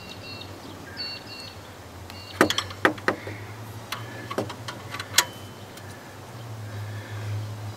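Hand-tightening a 19 mm timing-pulley bolt with a long torque wrench and socket: a few sharp metallic clicks of the tool working, the loudest a little past halfway. Several short high beeps sound in between, over a steady low hum.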